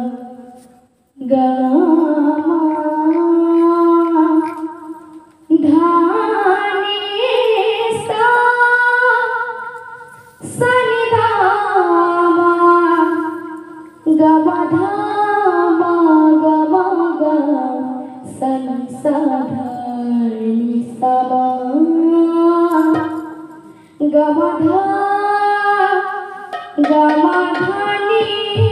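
A young girl singing a devotional kirtan solo into a microphone, in drawn-out phrases of a few seconds each with long held, gliding, ornamented notes and short breaks for breath between them.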